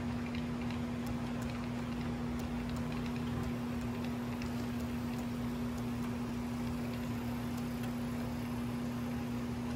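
HO scale model freight train rolling past behind two Kato GP35 diesel locomotive models: a steady hum with faint, irregular ticking of the wheels over the track.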